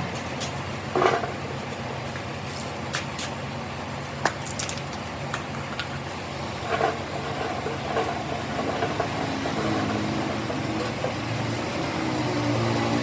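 An engine running steadily, with a few sharp metallic clinks and knocks over it.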